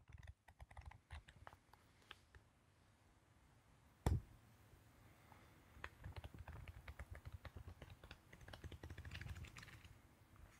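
Faint, irregular small clicks and taps, like keys or objects being handled, with one louder knock about four seconds in and a denser run of quick ticks in the second half.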